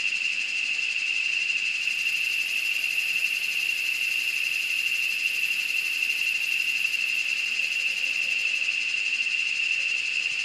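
Steady, high-pitched insect chorus, a pulsing drone that does not let up. A fainter, higher hiss joins it about two seconds in and fades out near the end.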